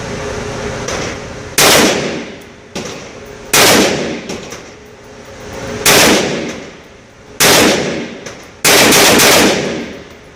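KelTec PMR-30 .22 Magnum pistol firing Hornady V-Max 30 gr rounds. Four single shots come about two seconds apart, then a quick string of about three near the end. Each shot rings off and dies away over about a second.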